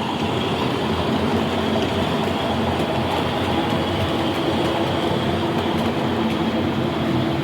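A train running steadily, with a constant engine drone over rail noise.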